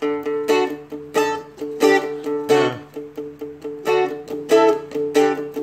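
Seagull Merlin M4 four-string strumstick playing a rock verse riff: a quick run of picked notes, about three a second, on the bottom strings while the open low D string rings on as a drone.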